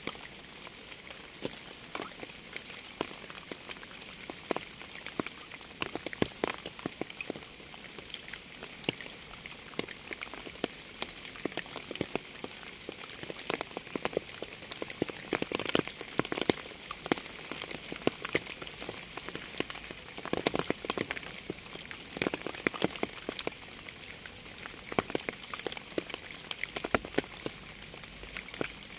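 Steady rain: many separate drops tapping irregularly on a surface over a soft continuous hiss.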